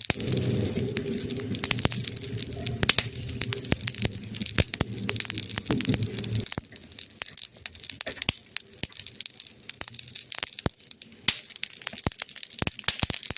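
Wood fire crackling, with frequent sharp pops and snaps; two louder pops about three seconds in and near the end. A low steady hum runs underneath for about the first six seconds, then stops.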